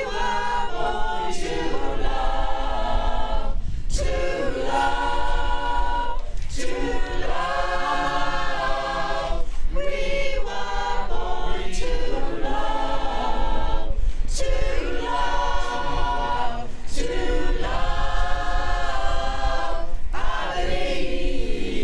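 Choir singing a cappella, in short held phrases with brief breaks between them.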